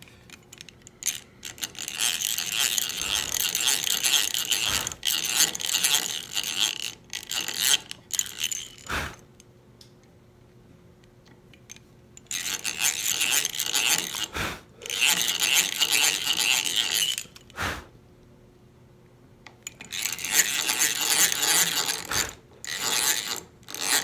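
Hand-cranked drill turning a 3/32 in bit into wood, its gears whirring, in three spells of several seconds each with short pauses between, drilling the screw holes for the door hinges.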